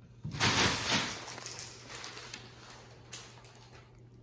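Clear plastic bag crinkling and rustling as a cat climbs into it: a loud burst of crackling about half a second in, then fainter rustles and a sharp crackle about three seconds in.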